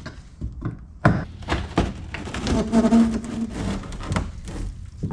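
Rotted wooden boat floor being pried and broken up: a rapid run of knocks and cracks, with a brief drawn-out tone about halfway through.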